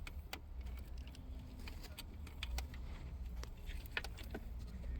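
Scattered light plastic clicks and taps from wiring-harness connectors being handled and plugged in behind a truck dashboard, over a steady low hum.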